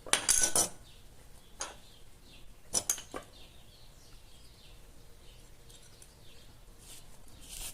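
Clinks and scrapes of small metal fan-motor parts being handled during a bushing inspection, loudest near the start and again about three seconds in.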